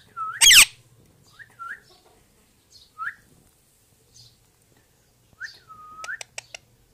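Pet rose-ringed parakeet giving short, hooked whistled chirps every second or so, with one loud harsh screech about half a second in. A quick run of sharp clicks comes near the end.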